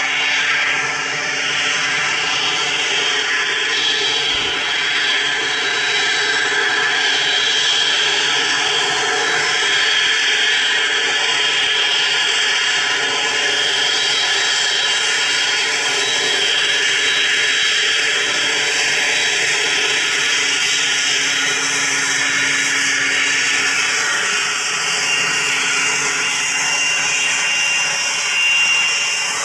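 The twin Pratt & Whitney Canada PW545B turbofans of a Cessna Citation XLS business jet running at taxi power: a steady jet whine with several high tones over a rushing noise.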